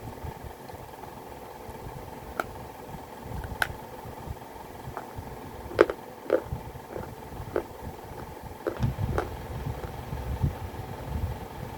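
Close-up crunching of baked clay pot pieces being bitten and chewed: a series of sharp cracks, the loudest about halfway through, over a low rumble and a steady hum.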